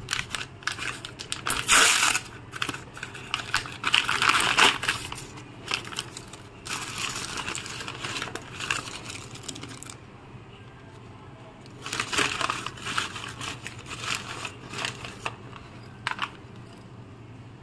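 Paper courier mailer being torn open and crumpled by hand: irregular bursts of rustling, crinkling and tearing, with a lull about two-thirds of the way through and a short sharp crackle near the end.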